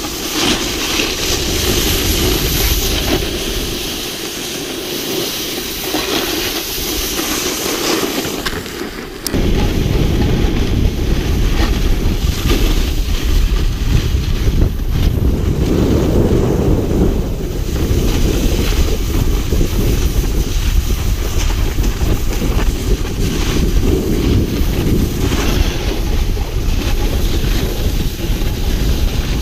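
Wind buffeting an action camera's microphone while sliding down a groomed ski slope, with a steady hiss of snow under the rider. About nine seconds in, the sound changes abruptly to a heavier, low wind rumble.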